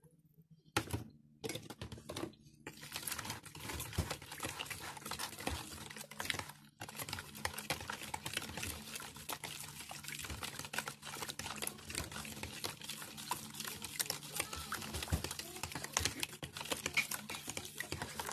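A fork beating thin, liquid batter in a plastic bowl: rapid clicking and tapping against the bowl with wet slapping of the liquid. A few separate taps at first, turning into steady, fast beating about two and a half seconds in.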